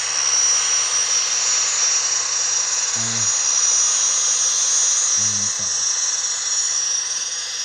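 Sound-decoder gas turbine sound from an HO-scale MTH Union Pacific Veranda turbine locomotive with an ESU LokSound V5, played through the model's speakers: a loud, steady high-pitched whine over a hiss, with the locomotive crawling at speed step 1.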